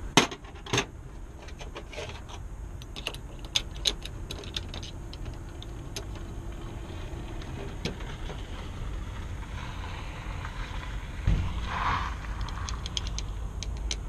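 Metal parts inside an opened Sargent mortise lock body clicking and ticking as they are worked by hand, with two sharp clicks in the first second and a knock about eleven seconds in. A steady low rumble runs beneath.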